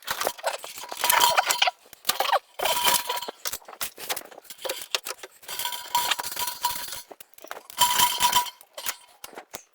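Metal clinking and rattling in several separate bursts, as plumbing fittings and tools are handled during a water heater line hookup.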